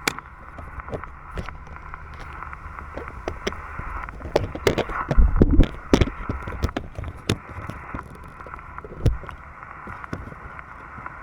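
Yaesu FT-891 transceiver's speaker giving out the hiss and static of the radio band received on single sideband as the radio listens for a reply, with scattered crackles. A few louder low thumps come around five to six seconds in and again about nine seconds in.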